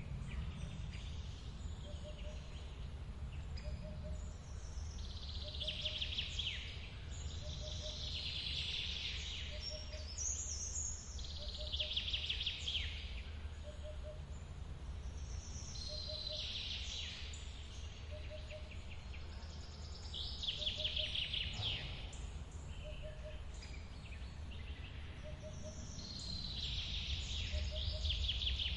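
Forest birds singing: trilling song phrases every three to four seconds over the steady low rush of a waterfall, with a short low call repeating about every second and a half.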